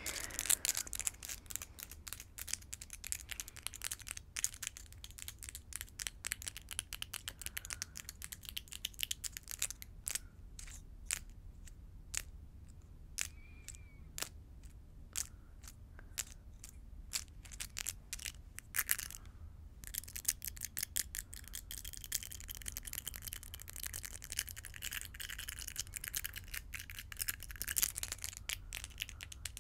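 Long false fingernails tapping and clicking against each other close to the microphone. There are quick runs of clicks at first and again for the last ten seconds or so, with slower, well-spaced single taps in the middle.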